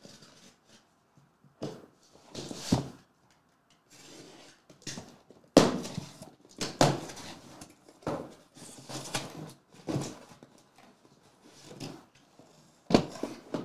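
Cardboard trading-card boxes being handled on a table: a run of irregular rustles and scrapes with several knocks, the sharpest about halfway through and near the end.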